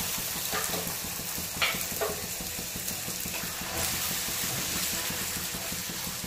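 A puri deep-frying in hot oil, a steady sizzle as it puffs up, with a couple of faint taps from the wire skimmer pressing it down about one and a half and two seconds in.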